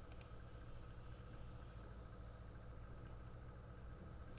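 Quiet room tone with a steady low hum, and two faint mouse clicks just after the start.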